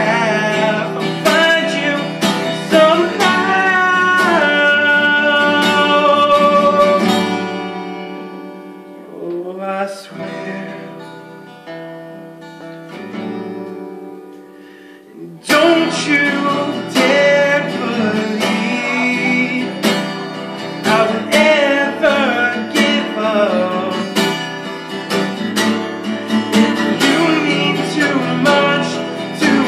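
Solo acoustic guitar strummed with a man singing along. About a quarter of the way in the strumming falls away to a quieter passage of a few picked notes, and the full strumming comes back in about halfway through.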